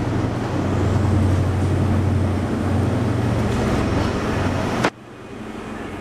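Loud steady engine rumble with a low hum under general background noise, as at a busy railway station; about five seconds in it cuts off with a click to a quieter steady background.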